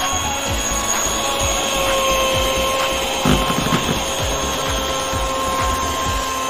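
Electric hand mixer running at a steady speed, its motor whining evenly as the beaters spin in a bowl of batter, with a brief knock about three seconds in.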